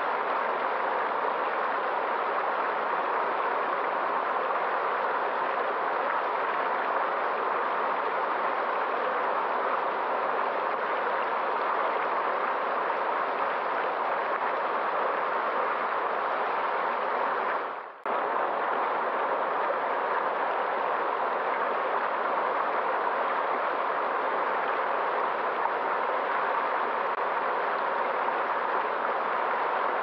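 Small rocky stream splashing and rushing over a low cascade of stones, a steady, even sound. It drops out for a split second about eighteen seconds in.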